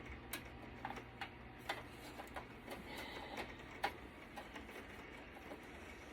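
Irregular light clicks and taps of metal and plastic parts being handled and pried while a desktop computer is taken apart, the sharpest tap about four seconds in.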